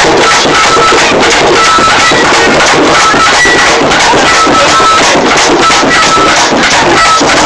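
Loud, dense drumming with fast, steady strikes that overload the recording, over a short high tone repeating about once a second.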